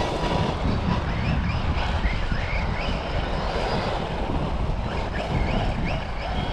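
Brushless electric drivetrain of a Losi Lasernut U4 1/10 4WD RC rock racer whining up in several short rising bursts as throttle is applied, over a steady rumble and wind on the microphone. It has started making a horrible noise, the sign of a drivetrain fault.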